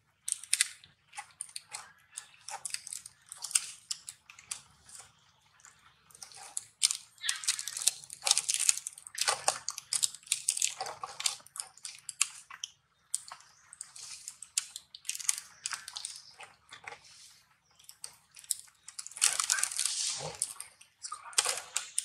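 Irregular rustling and crackling in short bursts that come and go, over a faint low hum.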